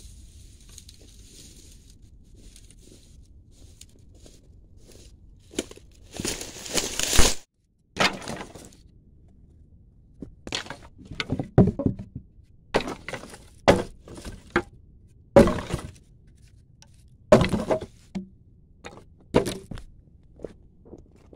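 Dry sticks and branches snapping and knocking together as firewood is broken up. A long crunching rustle comes first, then a run of sharp cracks and knocks, roughly one a second.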